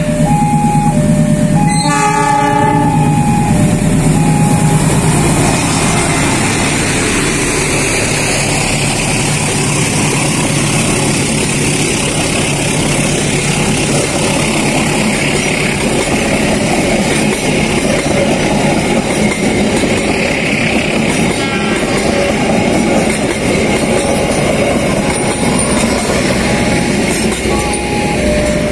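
Passenger train sounding a short horn blast about two seconds in, then running past over a level crossing with a steady rumble and clatter of wheels on the rails. The crossing's warning bell rings in a repeating two-tone pattern, heard plainly near the start and again near the end.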